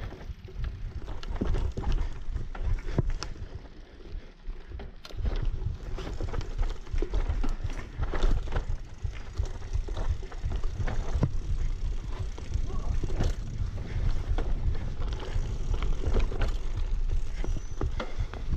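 A bicycle rattling and clattering over a bumpy dirt trail as it is ridden, with a steady stream of knocks from the bike and tyres on the ground over a low rumble. It is briefly quieter about four seconds in.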